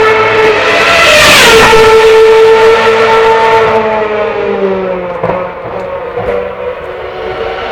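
Formula 1 cars' 2.4-litre V8 engines running at high revs at full throttle. One car passes close about a second and a half in, its pitch falling sharply as it goes by. After that the engine note slides lower and fades.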